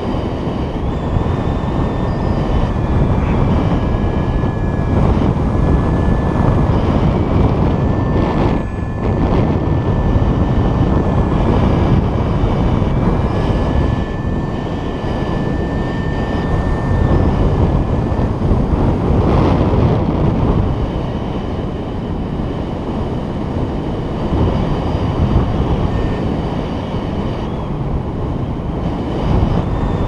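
Steady rush of airflow buffeting the camera microphone of a paraglider pilot in flight. Over the first two-thirds a faint thin whistle comes and goes, wavering slightly in pitch, and it fades out near the end.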